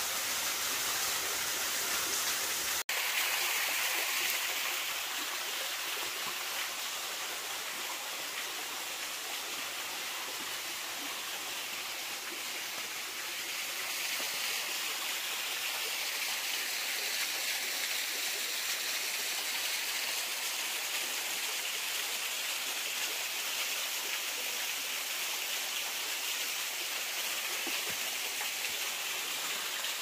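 Stream water running steadily, an even rushing that does not let up, with a momentary cut-out about three seconds in.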